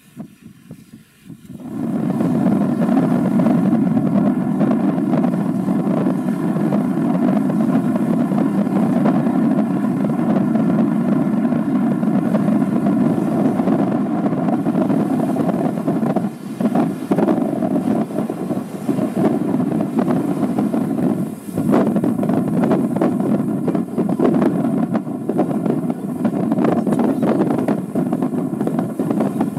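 Steady low drone of the Stena Britannica, a large ro-pax ferry under way, passing close by. It sets in abruptly about two seconds in, then holds steady apart from a couple of brief dips.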